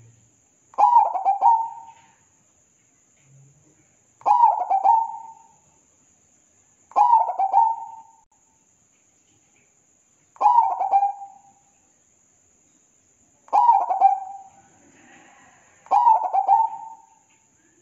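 Zebra dove (perkutut) cooing: six short phrases, about one every three seconds, each opening with a quick stutter of notes before a fuller coo.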